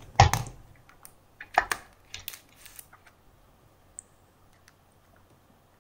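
Handling of a smartphone's plastic body and battery: a sharp click about a quarter-second in, a few lighter clicks and taps over the next couple of seconds, then near quiet.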